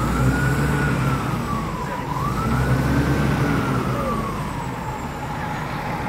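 Tracked telehandler's engine revving up twice and easing back to idle, with a whine that rises and falls in pitch along with the revs and a heavy low rumble that swells during the revs.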